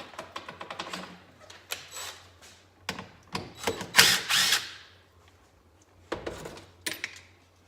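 Ratchet wrench clicking rapidly as the 10 mm bolt holding the engine's spring-loaded arm is backed out, followed by bursts of metal-on-metal clatter and a couple of knocks as the loosened parts are handled and set down.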